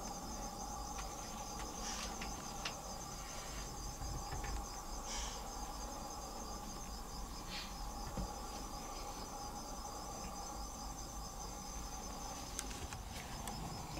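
Steady chorus of insects trilling, a continuous high-pitched shimmer with a lower steady hum beneath it, broken by a few faint clicks.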